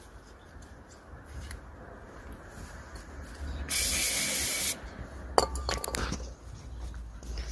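Aerosol can of EGR valve cleaner sprayed at a removed diesel EGR valve in one hissing burst of about a second, about four seconds in. A few sharp clicks follow.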